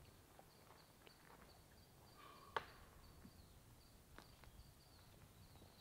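Near silence: faint outdoor room tone, with a single soft click about halfway through.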